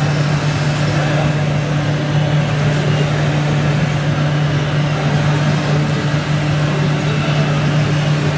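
Electronic diesel-truck engine sound from an RC scale truck's sound module, running steadily as a deep even hum over background noise.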